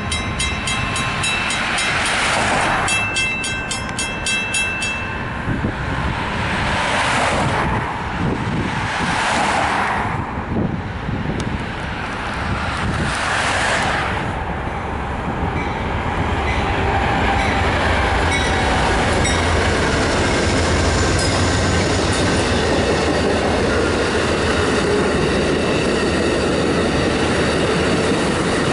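A mechanical railroad crossing bell rings rapidly and evenly at first. An Amtrak passenger train then approaches, sounding its horn in four blasts of about a second each, and passes over the crossing with a steady rumble and the clickety-clack of wheels on the rails.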